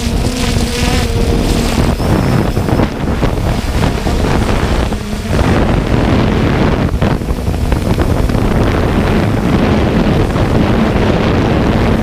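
Quadcopter drone's motors and propellers running in flight, a steady hum heard from the drone's own camera, with wind buffeting the microphone.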